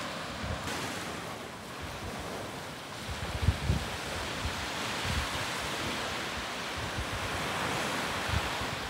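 Small ocean waves breaking and washing up a sandy shore, a steady surf wash, with gusts of wind buffeting the microphone now and then.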